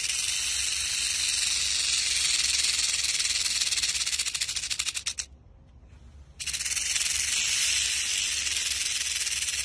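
Rattlesnake shaking its tail rattle: a continuous high, dry buzz of very fast clicks. It stops for about a second some five seconds in, then starts again. This is the snake's defensive warning.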